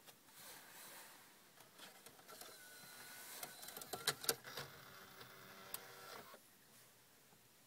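Alpine CDA-9815J car CD head unit's mechanism: clicking as the disc is drawn in, then the motorized front panel whirring shut, the motor hum cutting off about six seconds in. The unit has been failing to read discs.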